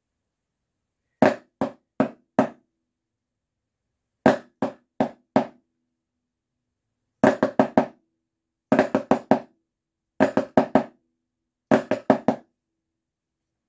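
Wooden drumsticks striking a snare practice pad in six short groups of four or five sharp taps, with pauses between the groups. Each group is a flam tap followed by a double stroke on the other hand (flam, right, left, left).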